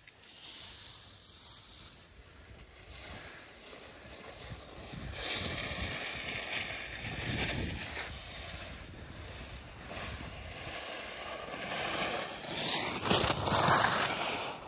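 Skis sliding and scraping over packed snow on a downhill run: a hiss that swells and fades several times and is loudest near the end.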